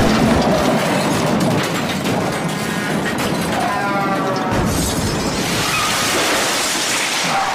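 Music overlaid with crashing, smashing noise effects: a dense noisy clatter, a low boom about halfway through, then a rush of high noise.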